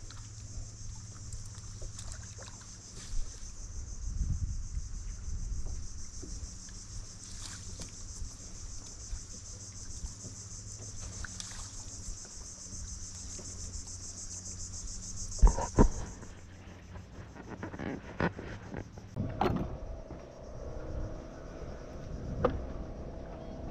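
A steady, high-pitched insect chorus over a low steady hum. The insects cut off abruptly about two-thirds of the way through, and several loud knocks and thumps follow toward the end.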